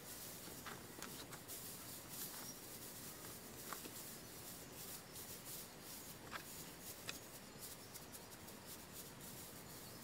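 Dry grass rustling faintly as it is spread and pressed down by hand as bedding on a raised log bed, with a few short, sharp crackles.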